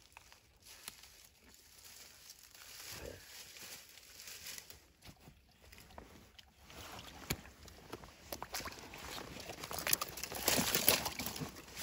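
Footsteps crunching over creek-bed gravel and dry leaves. They are faint and sparse at first, then louder and close together in the last few seconds.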